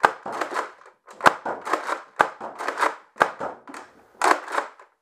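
Nerf Rival Atlas XVI-1200 pump-action foam-ball blaster being pumped hard and fast and fired over and over: a sharp shot about once a second, each followed by a short rattly noise, five shots in all.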